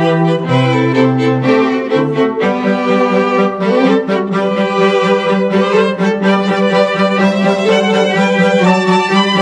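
Background music of bowed strings, violin and cello, playing slow held notes.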